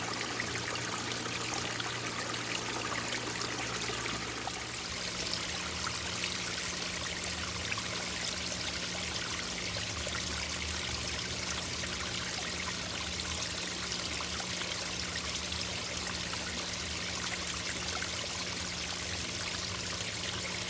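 Small backyard garden waterfall running steadily, water pouring and trickling over slate and river rock into a pond, with a faint steady low hum beneath.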